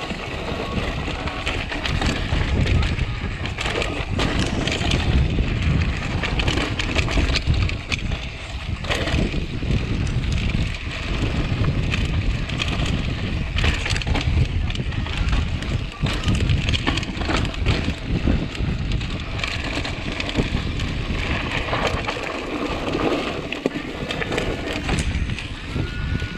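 Mountain bike riding fast down a dirt singletrack: wind buffeting the camera's microphone with a heavy rumble, over tyre noise on dirt and stones and the bike rattling over bumps.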